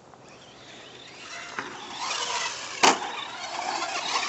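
Battery-powered Traxxas 4x4 RC car driving hard through loose dirt: its electric motor and spinning tyres grow louder from about a second and a half in, with one sharp knock near three seconds.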